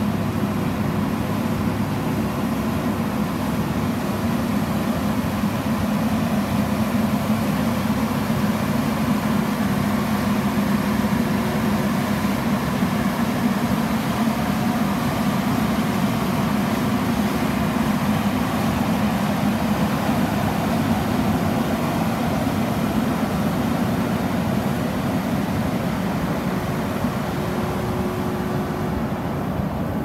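Vögele SprayJet tracked asphalt paver's diesel engine running steadily as the machine drives along on its tracks.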